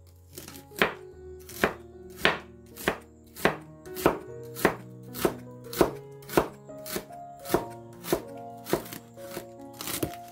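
Large kitchen knife chopping bitter mustard green stalks on a wooden cutting board: an even run of crisp chops, about three every two seconds, over soft background music.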